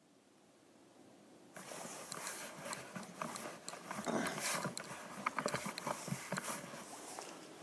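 Rustling and irregular knocking close to the microphone that starts suddenly about a second and a half in: footsteps and handling noise of a runner carrying a Ricoh Theta Z1 360 camera.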